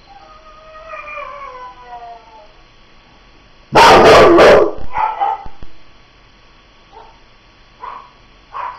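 Pit bull howling: a faint falling howl at first, then about four seconds in a very loud howl with its head thrown back, distorted by its loudness, followed by a few short yips.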